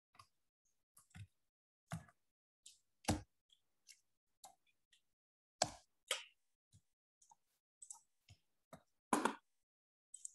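Irregular clicks and taps of a computer mouse and keyboard during copying and pasting of text, a scattered series with a few louder taps about three, five and a half, and nine seconds in.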